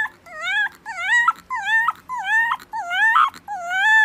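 A fluffy white puppy giving a run of short, high whining howls, about two a second, each dipping and then rising in pitch.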